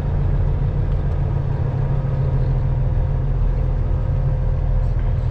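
Semi truck's diesel engine running at low speed as the truck rolls slowly, heard inside the cab as a steady low drone.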